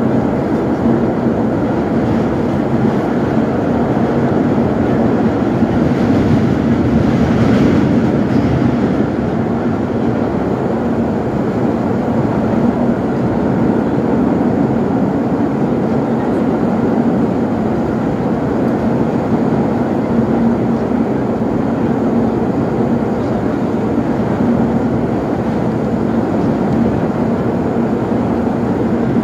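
Vintage R1/R9 subway cars running through a tunnel, heard from inside the car: a steady, loud rumble of wheels on rail and running gear with a low hum underneath. The noise turns briefly harsher and brighter about seven seconds in.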